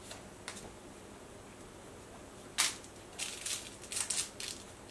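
West Highland White Terrier puppy playing with a toy on a hardwood floor: a sharp click about halfway through, then a quick flurry of clicks and scratches.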